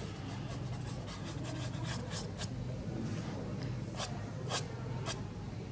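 Fingers rubbing and dragging soft pastel across textured paper to blend it: a run of short, soft brushing rasps, more distinct in the second half.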